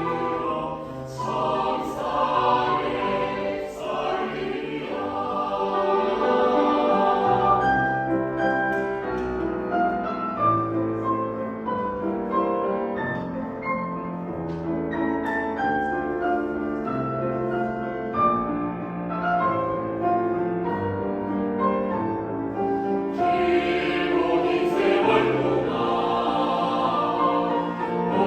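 A choir singing in concert, many voices on sustained chords. The sound is full and bright at first, thins and softens through the middle, then swells again to full voice for the last few seconds.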